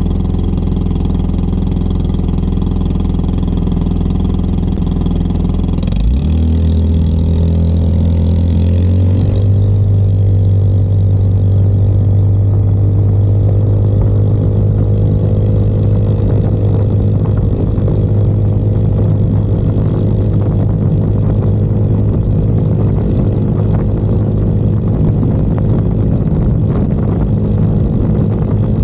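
2022 Icebear Maddog Gen V scooter's single-cylinder carbureted engine idling at a stop, then revving up about six seconds in as the scooter pulls away. The engine then holds a steady higher pitch while the road speed keeps climbing.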